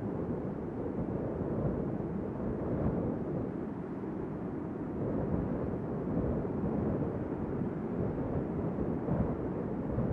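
Moderate wind blowing steadily, a low rushing noise that swells and eases gently.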